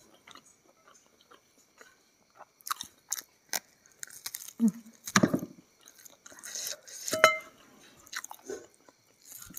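A person biting into and chewing a piece of Indonesian fried free-range chicken (ayam goreng kampung) held in the hands, with scattered short bites and chewing sounds. The sounds begin about two and a half seconds in and are loudest around the middle and just after.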